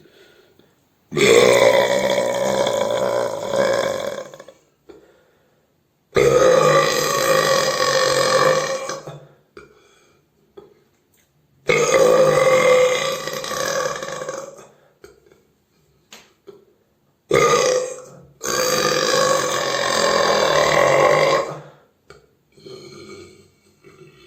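Human burping: four long, loud belches of about three seconds each, with a short burp just before the last one.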